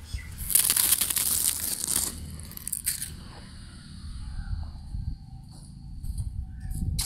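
Dry leaves and palm fronds crackling and rustling for about a second and a half, with a few more short crackles near the end, over a steady low rumble.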